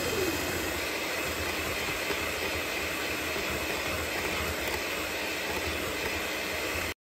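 Electric mixer running steadily, its beaters whipping banana bread batter; the sound cuts off suddenly near the end.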